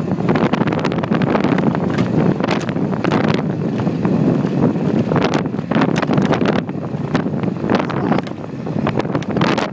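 Wind buffeting the microphone on a moving e-bike: a loud, steady rush of wind noise broken by frequent sharp crackles and gusts.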